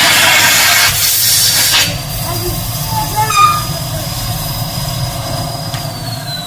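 Numatic James tub vacuum cleaner running with a loud rush of air. About two seconds in, the rush drops sharply as the floor tool sucks down and sticks to the carpet, leaving a steady high motor whine. Near the end the whine falls slowly in pitch as the motor winds down.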